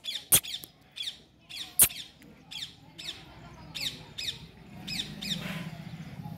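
An animal's short, high chirping calls, each sliding downward, repeating about twice a second and fading out about five seconds in. Several sharp clicks come between them, and a low pulsing hum comes in near the end.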